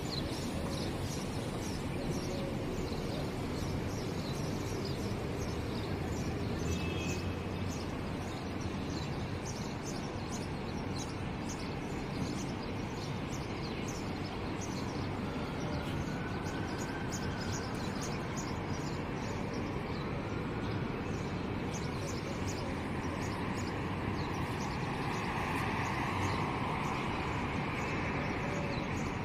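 City street ambience: a steady hum of traffic, with small birds chirping over it and a vehicle passing near the end.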